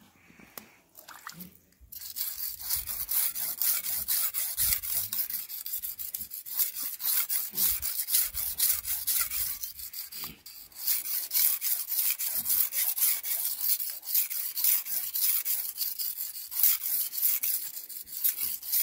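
Steel knife blade stroked quickly back and forth on a whetstone, a steady run of scraping strokes to sharpen its edge. The strokes start about two seconds in and break off briefly near the middle.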